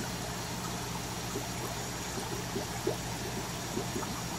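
Air-driven aquarium sponge filters bubbling: a steady trickle of small bubble plinks and splashes over a constant low hum.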